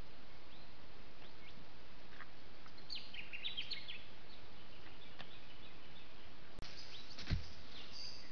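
Steady hiss of a trail camera's microphone, with small birds chirping in a short flurry about three seconds in and a few scattered chirps later. A single low thump about seven seconds in is the loudest sound.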